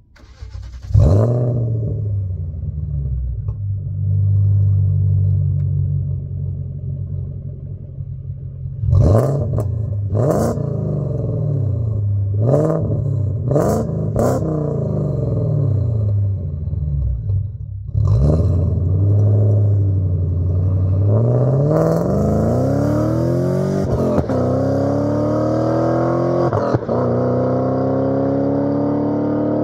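2002 BMW 540i Touring's 4.4-litre V8, with test pipes in place of the secondary cats, an X-pipe and short glass-pack mufflers, starting warm about a second in and settling to a rumbling idle. It is revved in a string of quick throttle blips, then pulls away under acceleration, pitch climbing through two upshifts as the car drives off.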